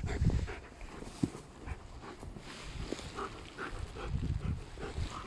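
Dogs playing over a stick, with a few short dog whines among scattered light knocks and crunches.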